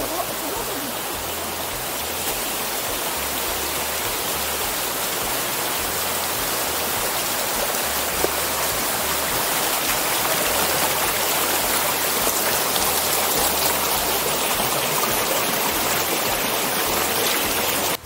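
Shallow mountain stream rushing and splashing over mossy rocks, a steady rush of water that grows a little louder partway through.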